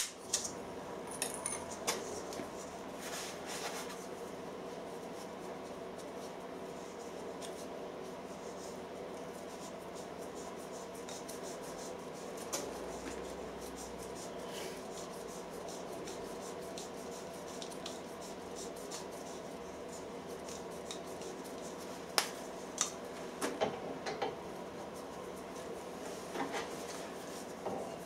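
Light metal clinks and rubbing from handling a bronze fusible plug and brass pipe fittings while PTFE tape is wrapped on its thread, over a steady background hum. A few sharper clinks come in the last several seconds.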